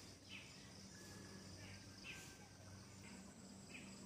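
Faint outdoor ambience: a steady high insect buzz with about four short, faint chirps.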